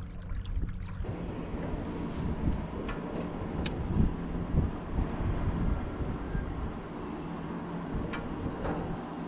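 Wind rumbling over the microphone on open water, with water sloshing against a kayak's hull; the rumble grows louder about a second in.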